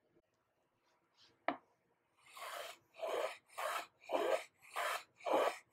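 Stanley metal bench plane taking short strokes along the edge of a board to cut a bevel, each stroke a quick shaving rasp, about six strokes at a little under two a second. Before the strokes begin there is a single sharp knock, about a second and a half in.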